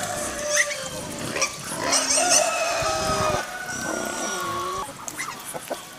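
Hungry pigs squealing at feeding time: several long, harsh calls, loudest in the middle.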